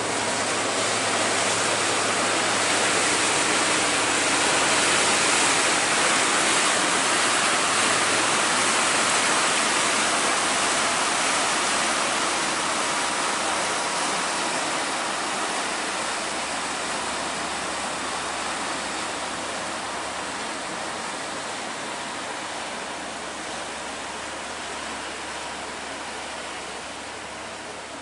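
Propeller wash of an inland tanker barge churning the river below, a steady rushing that swells about five seconds in and then slowly fades as the barge moves away, over a faint low engine hum.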